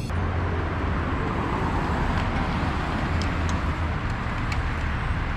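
Steady rumbling road and wind noise of riding along a road, with a few faint light ticks near the middle.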